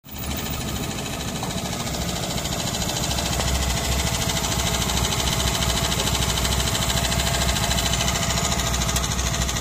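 Yanmar AP4 rice transplanter's small single-cylinder petrol engine running steadily, with a fast, even chugging pulse.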